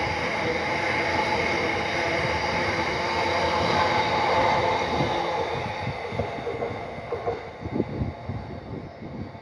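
Freight train's bogie box wagons rolling past close by, a steady rumble and rattle of steel wheels on rail. About five seconds in it fades as the end of the train draws away, leaving a few separate clunks from the wheels.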